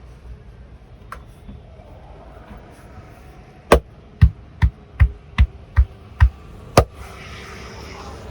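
A run of eight sharp hand slaps of a percussive massage, about two and a half a second, each with a dull thud, starting about halfway through.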